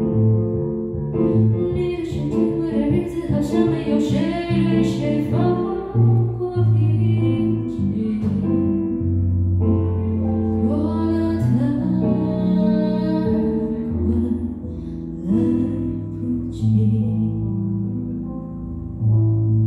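Live music led by a Nord Electro 6 stage keyboard in an instrumental passage: chords and a wavering melody over sustained low bass notes.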